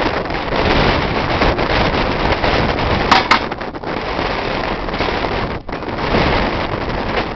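Wind buffeting the microphone: a steady rushing noise that swells and dips, with two short clicks about three seconds in.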